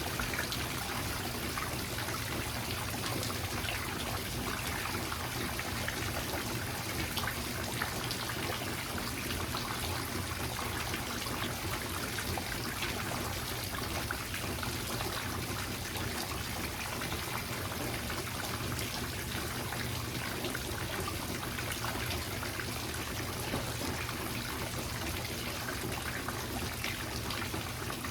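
Steady rain falling: an even wash of noise dotted with many small, sharp drop hits.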